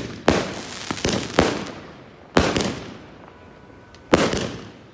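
Consumer firework cake (a 49-shot variegated peony cake) firing shot after shot: a sharp bang about every one to two seconds, each trailing off in a fading rumble, with a pair of shots in quick succession near the end.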